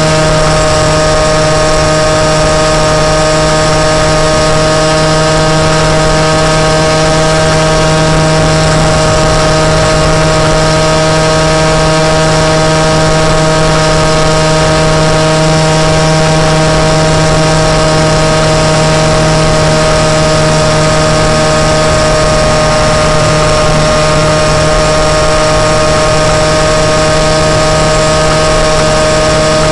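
Moped engine running at a steady, unchanging speed: a loud, even buzz held at one pitch.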